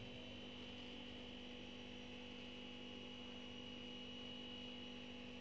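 Faint steady electrical hum: a low hum with a thin high whine over it.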